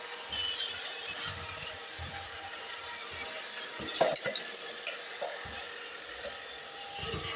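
Roomba robot vacuum running across the floor: a steady whirring hiss from its motor and brushes, with scattered low bumps and a couple of sharp clicks about four seconds in.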